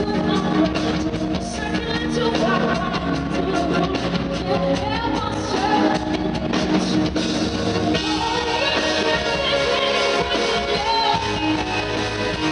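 Rock music with a singer over electric guitar and drums.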